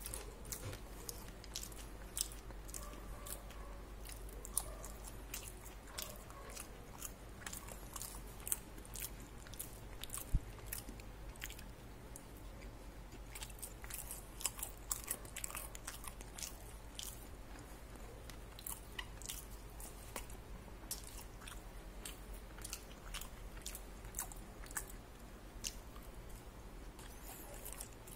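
A person biting and chewing crispy fried fast food from a KFC crispy chicken-thigh burger meal, with many short, sharp crunches.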